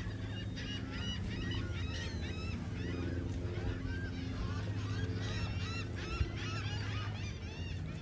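A flock of seagulls calling over one another: many short, arched cries that never let up, over a steady low hum.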